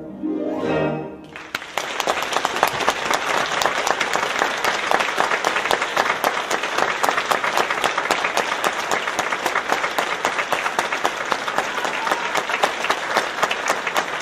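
An orchestra ends a ballet variation with a quick falling run, then a theatre audience breaks into loud, steady applause.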